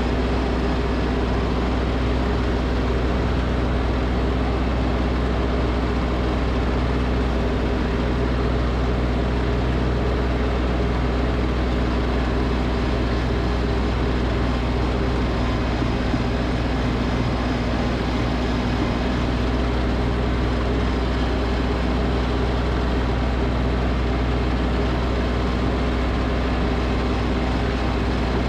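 Snowblower engine running steadily under load while throwing snow.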